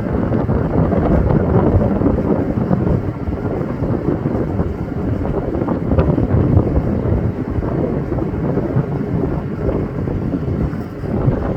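Strong wind buffeting the microphone, a loud gusting rumble that rises and falls.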